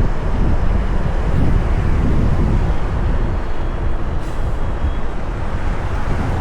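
Heavily loaded heavy-haul truck driving on the road: a steady low engine rumble mixed with road and wind noise.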